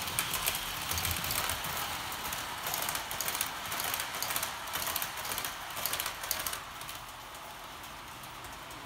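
MTH B&O model passenger train clattering on its toy track as it runs past, wheels rattling in a rapid, irregular stream of clicks. About six and a half seconds in the clatter falls away to a quieter steady rushing as the train moves off.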